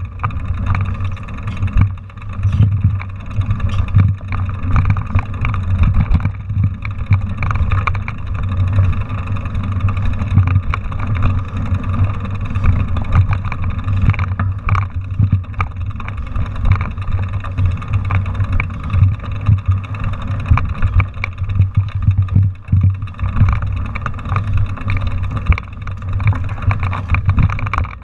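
A mountain bike rolling over a rough dirt trail, heard through a handlebar-mounted camera: a steady low rumble with frequent irregular rattles and knocks as the bike jolts over ruts and stones.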